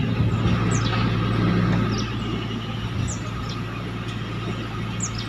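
A motor vehicle engine running steadily with a low hum, a little louder in the first couple of seconds. Short high falling chirps sound about once a second over it.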